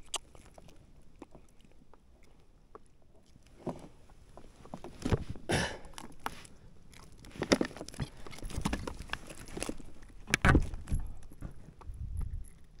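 Scattered knocks, rubbing and handling noises of a hooked trout being landed and handled in a small kayak, with several louder short bursts as the fish thrashes.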